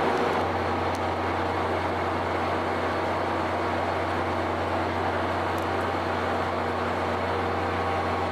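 Caltrain F40 diesel locomotive idling: a steady low hum with a few fixed tones over it, unchanging throughout.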